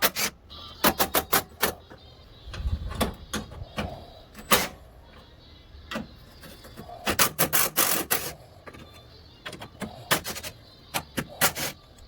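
Hand tools working on a car, making quick runs of sharp metallic clicks and knocks with short pauses between them.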